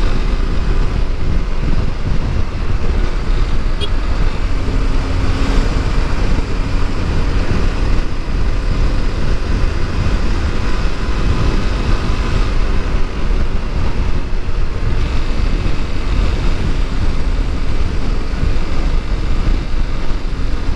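Honda CBR250R's single-cylinder engine running steadily while riding, under a dense, steady rush of wind noise.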